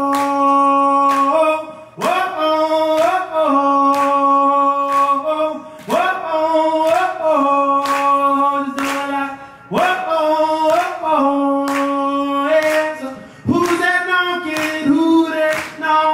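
A man singing long, held wordless phrases over a strummed acoustic guitar. Each phrase starts with an upward slide and repeats about every four seconds.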